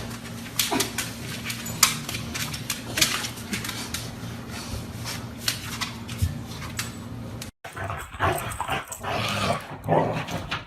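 A dog making short sounds among sharp clicks and knocks, over a steady low hum. The sound drops out abruptly about three-quarters of the way through, and a busier stretch with more short pitched sounds follows.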